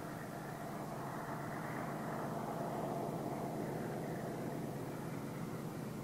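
Distant MLW (Alco-design) diesel-electric locomotive working a heavy oil-tank train: a steady low drone with a faint hum, swelling a little a few seconds in and then easing.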